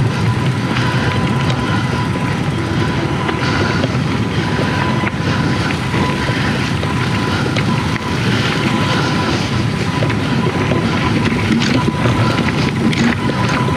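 Mountain bike riding over a rough trail: a steady, loud rumble and rattle from the tyres and frame, with occasional sharp clicks.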